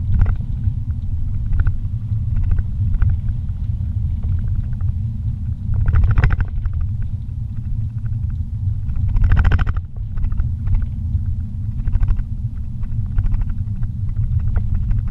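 Car driving along a paved street, heard from inside the cabin: a steady low rumble of engine and road noise. Two short, louder rushes of noise come about six and nine and a half seconds in.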